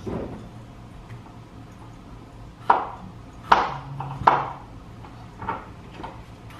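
Kitchen knife striking a cutting board in separate chops: four sharp knocks about a second apart, starting a little under three seconds in.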